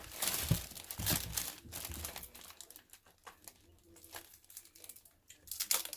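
Gift wrapping being crumpled and torn open by hand, a dense crinkling for the first couple of seconds, lighter rustles after that, and another burst of sharp crackling near the end.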